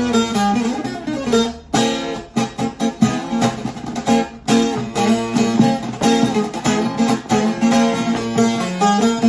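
Long-necked bağlama (saz) with a 41-stave African walnut bowl and spruce top, played with a plectrum in quick strokes as a folk melody, with brief pauses about two and four and a half seconds in.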